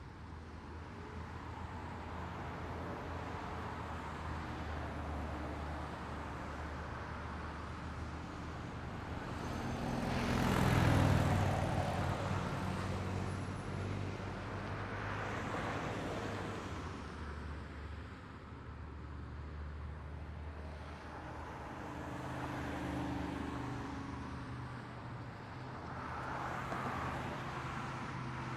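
Road traffic: a steady low engine rumble with vehicles passing one after another, each swelling and fading. The loudest passes close by about a third of the way in.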